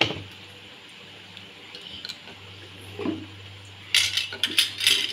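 A metal spoon clinks sharply against a brass kadhai at the start, with a brief ring, while onion pakoras fry in the hot oil with a faint steady sizzle. About a second before the end comes a quick run of clinks and clatters of metal utensils.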